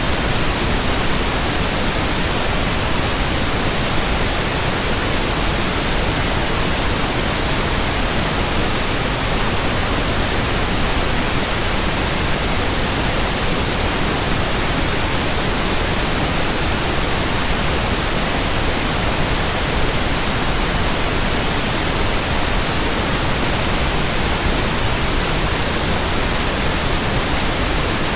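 Steady white noise, an even hiss across the whole range with no pulses, tones or changes.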